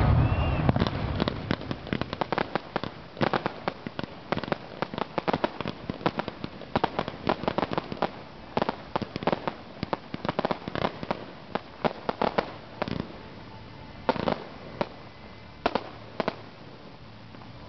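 Fireworks show with aerial effects and crackling stars bursting overhead: a dense, irregular run of sharp cracks and pops, several a second, with a few louder reports standing out.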